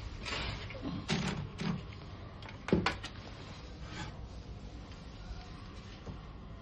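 Silver Reed Silverette II manual typewriter: about seven irregular mechanical clacks in the first four seconds, the loudest a pair near three seconds in, then only a low steady background.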